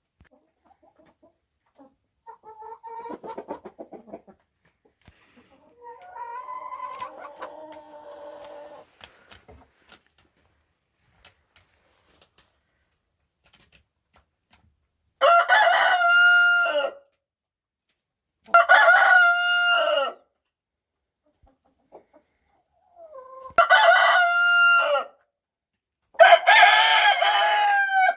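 Roosters crowing: four loud crows in the second half, each about two seconds long, the last with a different pitch pattern from the first three. Softer chicken clucking comes twice in the first ten seconds.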